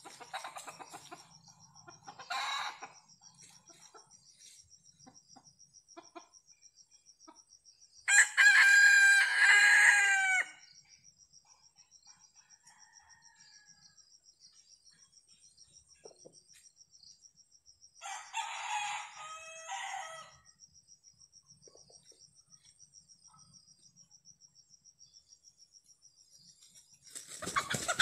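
Red junglefowl roosters crowing: one long, loud crow about a third of the way in and a shorter crow about two-thirds through. Near the end comes a sudden burst of wing flapping and scuffling as the roosters fly at each other.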